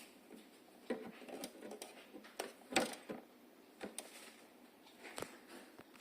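Scattered small clicks and light knocks as a heatsink is handled and fitted back onto a TV's processor board, the loudest knock about three seconds in.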